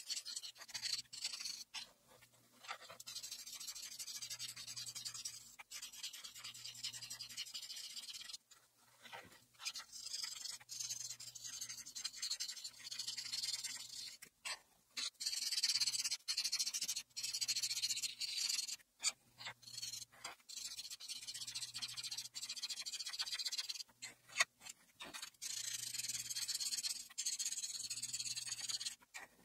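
Felt marker tip rubbing across paper in rapid back-and-forth strokes as it colours in, a scratchy hiss that stops briefly every few seconds between patches.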